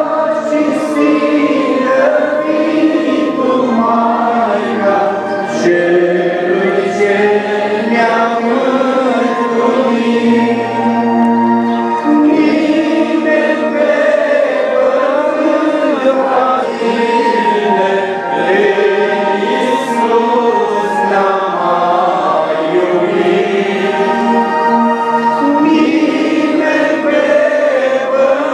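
A choir singing a slow Orthodox hymn to the Virgin Mary, the voices holding long notes that glide from one to the next.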